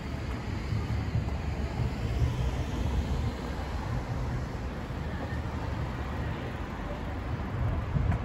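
Wind noise on the microphone of a camera carried on a moving bicycle, a steady uneven low rumble, over city street traffic.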